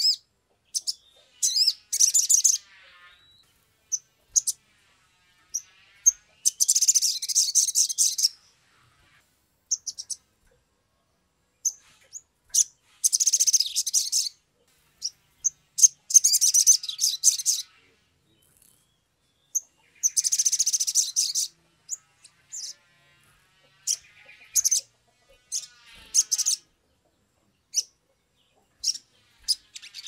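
Male olive-backed sunbird (sogon) singing: five bursts of rapid, high-pitched trilling song, each one to two seconds long, with single sharp chirps scattered between. It is singing in the excited, full-voiced way that keepers call gacor.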